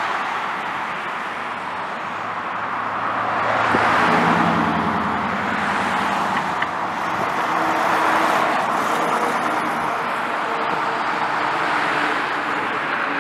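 Heavy trucks driving past on a street: a dump truck and then a box delivery truck go by with engine and tyre noise. The noise swells as each passes, loudest about four and eight seconds in.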